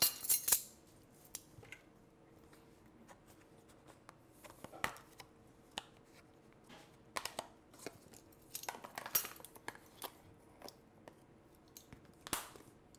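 Metal measuring spoons on a ring clinking and rattling in short scattered bursts while spices are measured out, with light taps of a spoon in a small blender jar.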